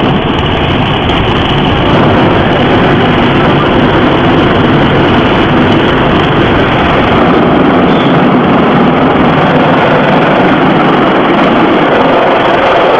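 Automatic car wash brushes scrubbing over the car's windows and body with water spray, a loud steady rushing noise heard from inside the car.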